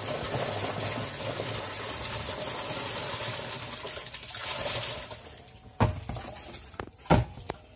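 Wet, slithering rush of small fish pouring out of a plastic crate into a plastic drum. It fades after about five seconds, and two sharp knocks follow near the end.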